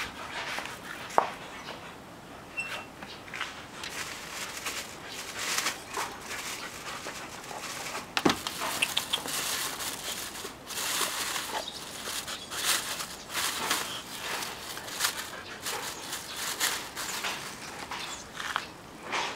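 Two dogs, a Siberian husky and a brown mixed-breed dog, moving about right at the microphone: a run of short, irregular scuffling and snuffling noises.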